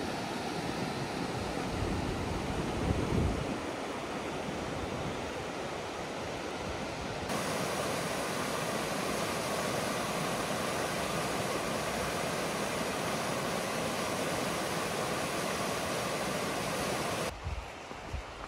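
Mountain river rushing over rocks and rapids, a steady wash of water. Wind buffets the microphone with low rumbles a couple of seconds in. About seven seconds in the rush turns louder and fuller, like white-water rapids heard close up, then drops away abruptly near the end.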